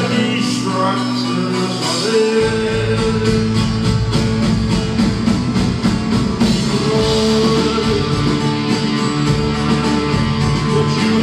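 Live rock band playing electric guitars, bass and drums, heard from among the audience. The bass and a steady drum beat come in about two seconds in, under sustained guitar notes.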